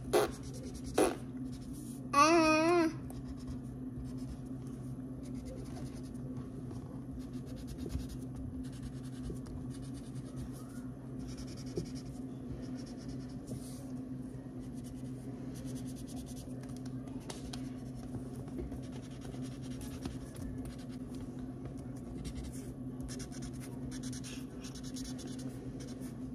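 Crayon scratching across paper in soft strokes, over a steady low hum. About two seconds in, a child makes a short wavering vocal sound.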